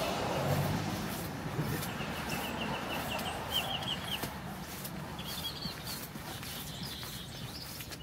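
A bird calling: a run of short high chirps that speeds up around the middle, followed by a few shorter bursts of chirps, over the hiss of a car passing on the wet street that fades about a second in.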